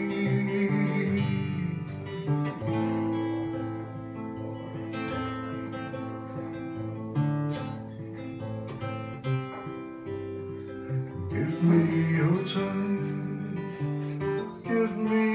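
Acoustic guitar strummed and picked in a slow chord progression, an instrumental passage of a singer-songwriter's song.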